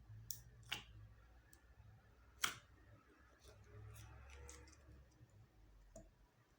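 Slime being mixed by hand, giving sparse sharp clicks and pops, the loudest about two and a half seconds in, over a faint low hum.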